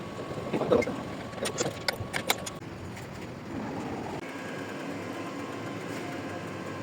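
A bench grinder's electric motor running with a steady hum, with a few sharp metallic clicks and clatter in the first couple of seconds. The sound changes abruptly about four seconds in, and the steady hum carries on after.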